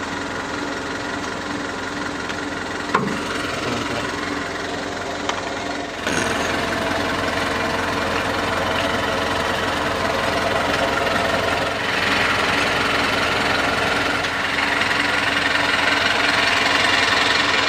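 Heavy truck's diesel engine idling steadily, with a single sharp knock about three seconds in; it grows louder over the last few seconds.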